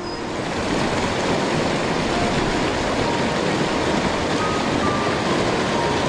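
Mountain stream water rushing steadily, swelling up in about the first second and then holding an even level.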